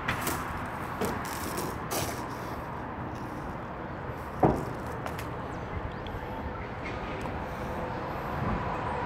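Knocks and handling noises of furniture being wrapped in a quilted moving blanket, over steady outdoor background noise; one sharp knock about four and a half seconds in is the loudest.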